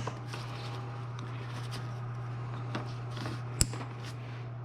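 Faint handling noises of parts being worked by hand in a car's engine bay: scattered light ticks and one sharp click about three and a half seconds in, over a steady low hum.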